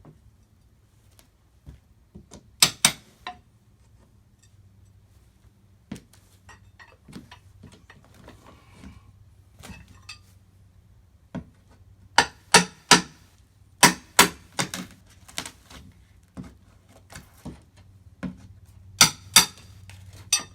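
Hammer blows on wood and nails, coming in quick pairs and threes with pauses between, amid lighter knocks and scraping, as nailed plywood is pried off old wooden steps.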